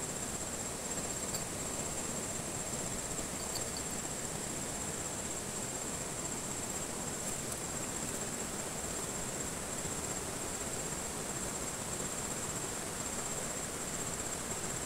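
Insects chirping in one steady, thin, high-pitched note over an even background rush of river water.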